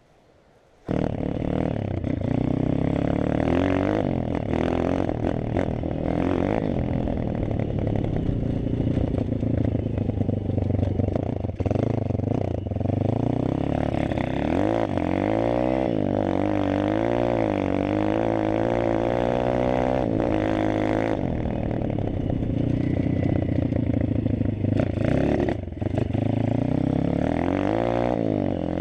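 Malcor XZF 140 pit bike's 140cc four-stroke single-cylinder engine running under load, its pitch rising and falling again and again as the throttle is opened and closed over rough grass. It comes in suddenly about a second in.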